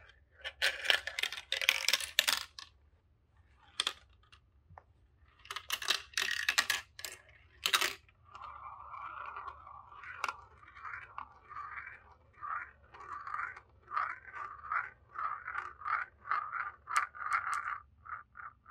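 A marble clattering down plastic marble-run tubes and tracks, then rolling round a plastic funnel bowl with a pulsing whirr that quickens as it spirals in toward the centre hole.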